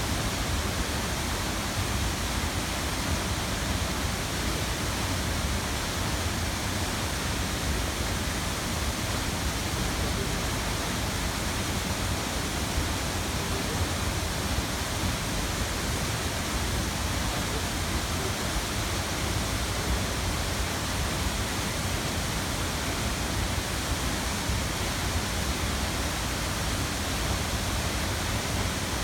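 Steady, unbroken rushing noise of a waterfall.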